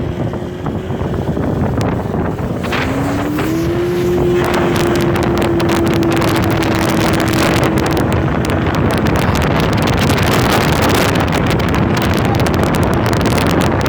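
Motorboat engine picking up speed about three seconds in, its pitch rising and then holding steady at speed, with wind buffeting the microphone.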